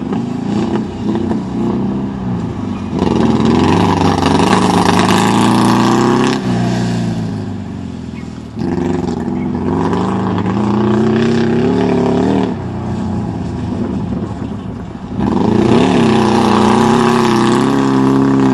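Air-cooled VW flat-four engine of a Baja Bug revving hard and easing off. It surges three times, about three seconds in, about eight and a half seconds in and about fifteen seconds in, dropping back between.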